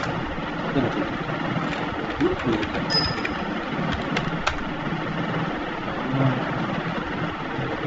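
A steady background hum with a few light computer keyboard key clicks about three to four and a half seconds in, as a short terminal command is typed and entered.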